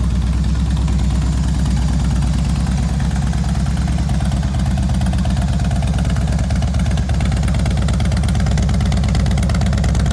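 Harley-Davidson touring motorcycle's V-twin engine idling steadily through an aftermarket 2-into-1 exhaust.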